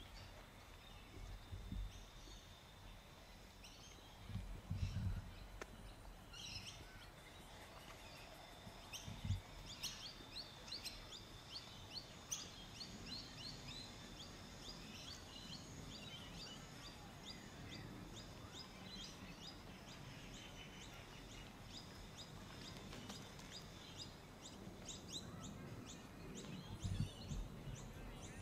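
Outdoor park ambience with small birds chirping in quick, high repeated notes, thickest in the middle, over faint background noise. A few low rumbles come and go, the strongest near the end.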